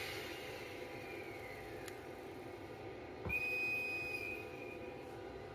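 Added sound effect of an electric locomotive's whistle: one high, steady blast about three seconds in, lasting over a second, with a low thump as it starts. A hiss and a short falling tone come near the beginning.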